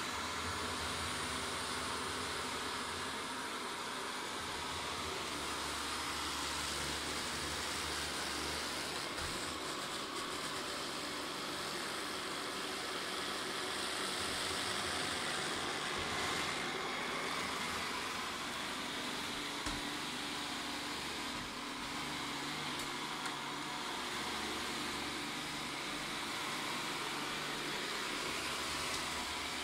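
Vorwerk Kobold VR200 robot vacuum cleaning a hard floor, its suction fan and brushes giving a steady, even whir.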